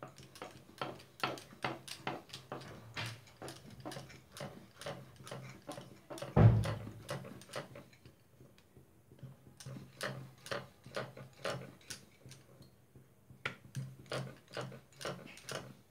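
Wooden rolling pin rolling out soft semolina roti dough on a round board, knocking and clicking against the board about twice a second, with one heavier thump about six seconds in.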